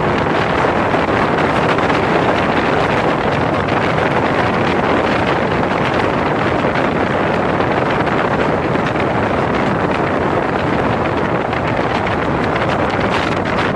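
Speedboat under way at speed: a steady, loud run of engine and water noise, with wind buffeting the microphone.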